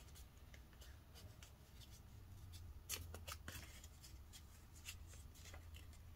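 Faint rustling and soft crisp crackles of a folded sheet of copy paper being pressed and creased between the fingers, the clearest about three seconds in.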